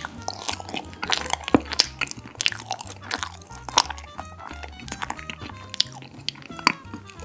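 Close-up chewing of a mouthful of chestnut tiramisu with granola and chocolate crumbs, with many small irregular crunches and mouth clicks; the granola is soggy rather than crisp. Background music with a steady low beat plays underneath.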